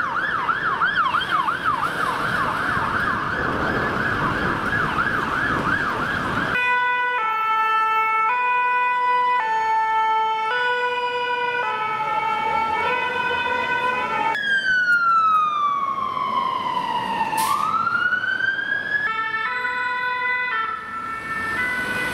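Fire-engine sirens one after another: a fast yelp siren over traffic noise for about the first six seconds, then a French two-tone siren alternating high and low notes under a second each, then a wail that falls slowly and swoops back up, and the two-tone again near the end.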